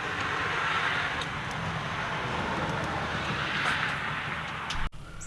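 A steady rushing hiss of a passing vehicle, swelling and easing, that cuts off abruptly near the end.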